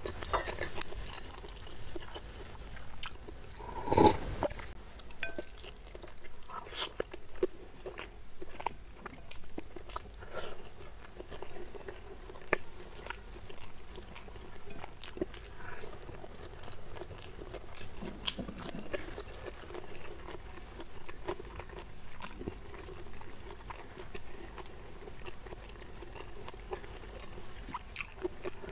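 Close-miked chewing of a mouthful of crispy fried chicken and rice, with small wet mouth clicks and crunches in a rhythm of about one chew a second. One louder sharp sound comes about four seconds in.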